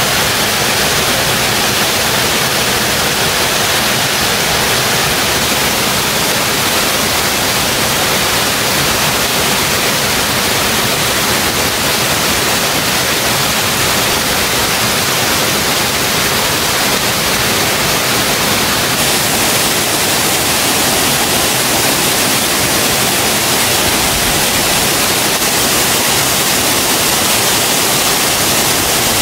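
Rushing water from a waterfall, a steady loud roar of noise without a break.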